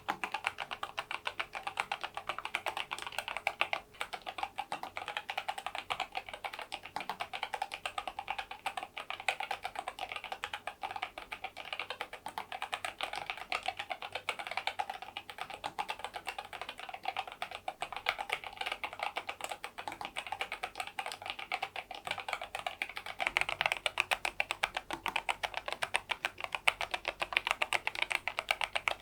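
NuPhy Air96 low-profile keyboard with Gateron LP 2.0 red linear switches and its stock low-profile keycaps, typed on fast and continuously: a dense stream of light key clacks that grows a little louder near the end.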